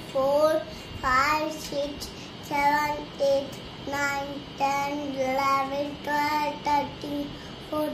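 A young child chanting numbers in a sing-song voice: a string of short held notes with brief breaks between them.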